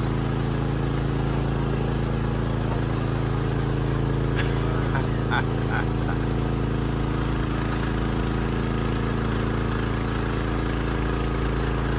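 Small engine of a hillside tea monorail running steadily as it hauls the car up a steep slope, with a few light clicks about four to six seconds in.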